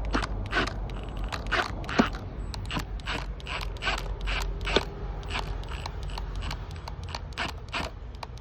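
Hand ratchet clicking, a run of sharp clicks about three a second, as a fitting is screwed up tight to a brick wall.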